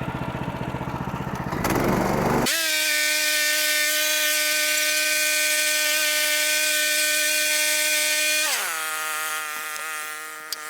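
Sawmill's 14 horsepower gas engine running, brought up to speed about two and a half seconds in to a steady high-pitched whine, then dropping in pitch near the end as it is throttled back. A sharp click is heard just before the end.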